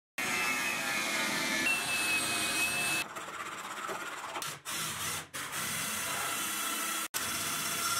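Small electric drill running steadily as its bit bores into a plastic part, broken by several abrupt cuts.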